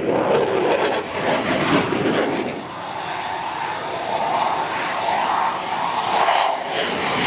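Aircraft engine noise: a loud, steady roar, with a whine coming in about halfway through.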